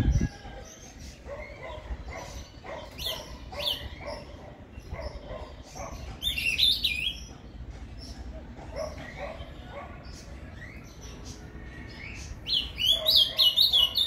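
Caged male azulão (ultramarine grosbeak) calling with short scattered chirps, breaking into a louder quick warbled song phrase about six and a half seconds in and again near the end, the Paraná-type 'fibra' song.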